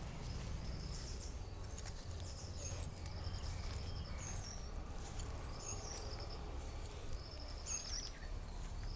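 Outdoor ambience of small animal chirps: short, high calls with a little hook in pitch, repeating about once a second over a steady low rumble.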